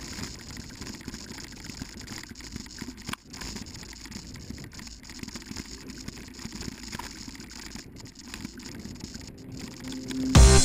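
Mountain bike rolling along a dirt trail, heard from a camera carried on the rider: steady, uneven tyre and trail noise with patter and rattle. Loud music cuts in near the end.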